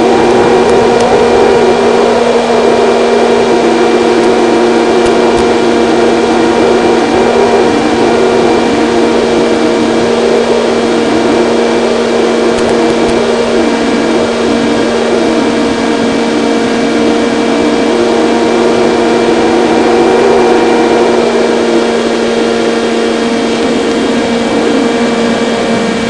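Electric motor and propeller of an FPV model plane in flight, picked up by an onboard microphone: a steady whine with rushing, wavering wind noise over the airframe. It eases slightly near the end.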